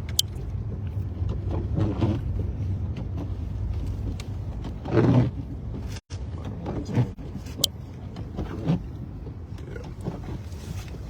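Car driving on a snowy road, heard from inside the cabin: a steady low rumble of engine and tyres, with a louder surge about five seconds in.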